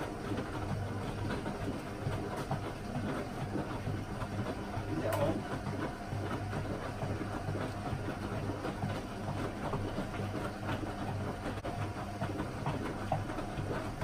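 Hoover Zodiac 12 front-loading washing machine running mid-cycle: a steady motor hum with continuous light clattering from the turning drum, and one sharper tick about five seconds in.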